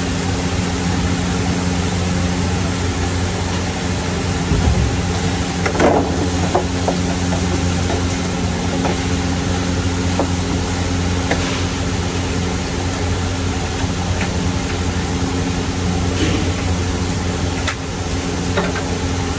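Cubes of squash and eggplant frying in a wok on a gas burner: a steady sizzle over a low steady hum, with a few knocks of a wooden spatula stirring them.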